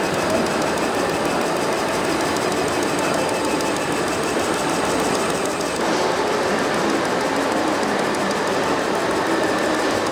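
Scale RC Unimog's front-mounted rotating sweeper brush, spun by a small electric motor, brushing along the track floor with a steady whirring, rustling running sound.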